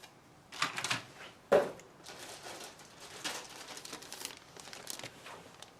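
Plastic bag crinkling as plastic model-kit sprues are handled and taken out, in irregular rustles with one sudden louder rustle about a second and a half in.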